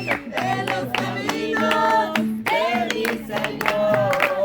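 A group singing a birthday song in Spanish to a strummed acoustic guitar.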